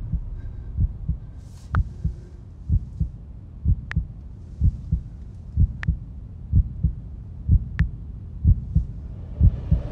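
Trailer sound design: a low, heartbeat-like double thump repeating about once a second, with a sharp tick about every two seconds. A whoosh swells near the end.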